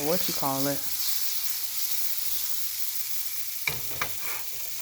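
Sausages frying in butter in a pan, a steady sizzle. A sharp knock, with a couple of lighter clicks, comes near the end.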